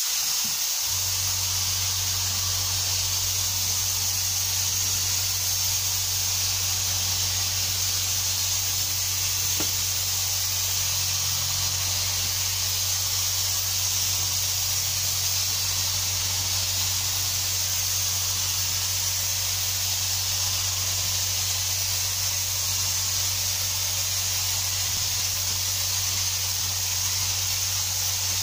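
Devilbiss FLG5 gravity-feed spray gun hissing steadily as compressed air atomises two-part top coat onto a plywood panel. A steady low hum runs underneath from about a second in.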